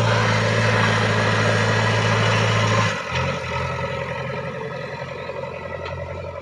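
Diesel engine of a JCB 3DX backhoe loader running steadily with a low hum, then dropping sharply in level about three seconds in and carrying on more quietly.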